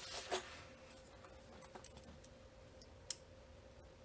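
Faint scattered clicks and ticks of a metal tool working at a small cam lock's sleeve, prying at the crimp that holds it, with one sharper click about three seconds in, over a faint steady hum.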